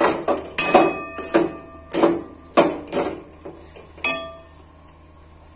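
Metal spoon knocking and scraping against a metal kadhai while stirring thick vermicelli. There are about seven ringing clanks, and they stop about four seconds in.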